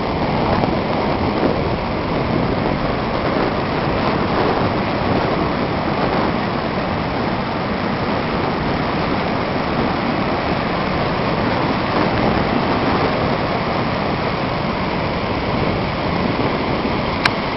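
Wind buffeting the microphone over the steady wash of surf breaking on a sandy beach, with a single short click near the end.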